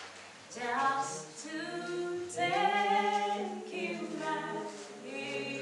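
Unaccompanied singing in a slow melody, the voices holding long notes and moving from one held pitch to the next.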